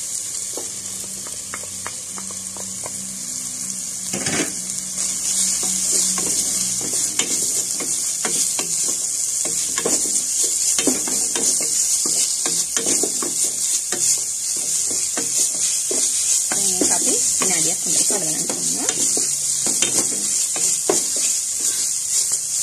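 Sliced onions, curry leaves and green chillies sizzling in hot oil in an enamel pot as a ground spice paste is stirred in with a wooden spoon, which scrapes and knocks against the pot again and again. One sharper knock comes about four seconds in, and the sizzle grows louder soon after.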